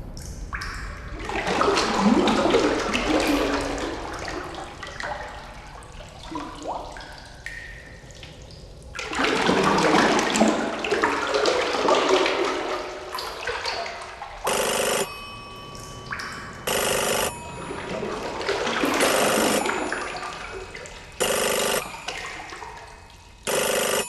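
Underwater sound-effect soundtrack: three long swells of rushing, bubbling water, with four short ringing electronic pulses in the second half.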